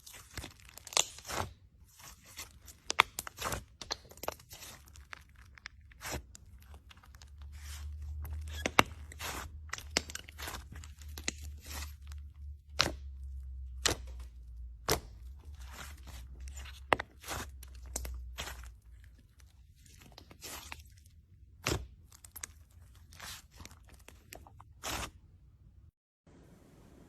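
Slime being squeezed and pressed by hand, giving irregular sharp crackles, pops and clicks, with a low rumble of handling through the middle stretch.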